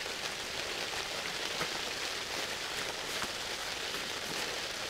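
Rain pattering steadily on the fabric roof of a pop-up ice-fishing shelter, heard from inside, with scattered sharper ticks of single drops.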